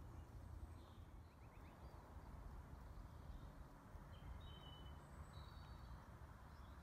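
Near silence: a faint outdoor background with a low rumble and a few faint, short high chirps.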